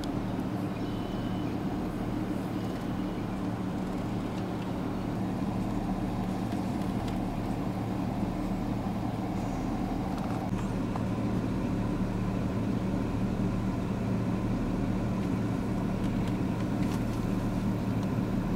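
Engine running steadily at an even pitch, with no change in speed.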